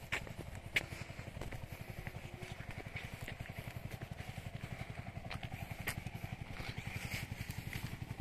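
Motorcycle engine idling with a fast, even low putter, and a few short sharp clicks over it.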